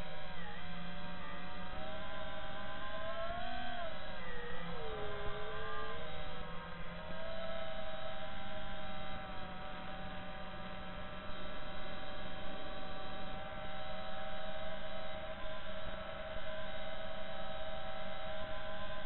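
FPV quadcopter's brushless motors and propellers whining in flight. The whine is a stack of tones that slides up and down with the throttle for the first several seconds, then holds at a steadier pitch.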